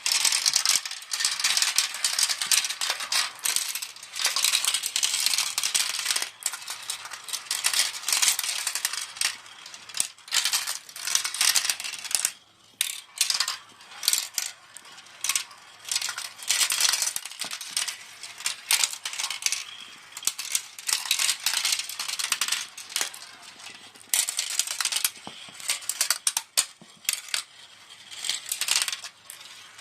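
Marbles rolling and clattering through a marble run: a dense, uneven stream of clicks and rattles that thins out briefly about twelve seconds in.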